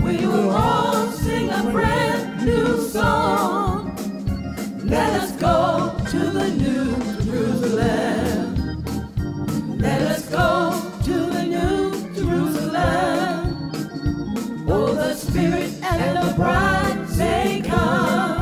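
Gospel song: organ and singing with vibrato over a steady beat.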